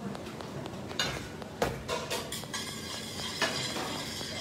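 Metal tongs clinking and scraping in a stainless steel frying pan as spaghetti is stirred and tossed, with a few sharp metal clanks.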